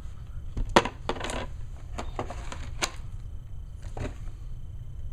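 Small hard plastic pieces clicking and clattering against each other and a hard surface, in a few separate sharp clicks. The loudest comes about three-quarters of a second in, with a short rattle just after it.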